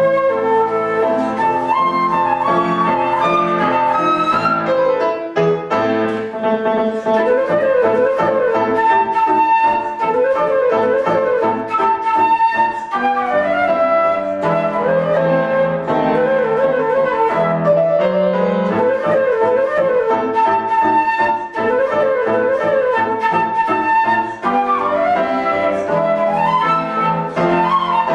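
Instrumental music led by a flute playing a quick melody full of short repeating turns, over a steady lower accompaniment.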